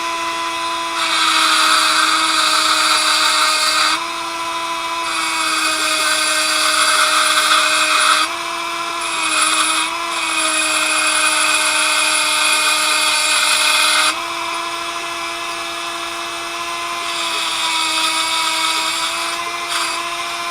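Dremel rotary tool running at high speed with a steady whine, grinding a groove into a steel pin in several passes of a few seconds each. During each pass the whine drops slightly in pitch under load and a harsh grinding hiss rises over it; between passes only the motor whine is heard.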